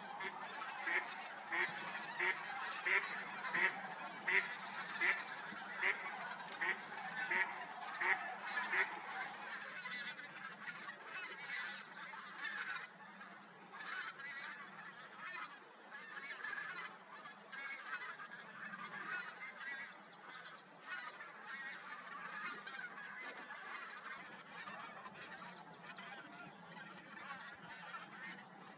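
Geese honking: a regular run of calls, about three every two seconds, for the first nine seconds or so, then looser, overlapping calls from several birds.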